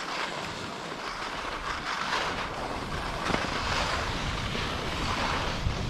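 Skis hissing over snow on a downhill run, with wind rushing over the microphone. Repeated swishes swell and fade, and the sound grows gradually louder.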